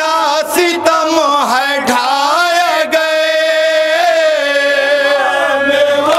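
A noha (Shia mourning lament) sung by a male reciter into a microphone, with a group of men chanting it with him in long, wavering held notes. About three seconds in a long note is held, then slides down toward the end.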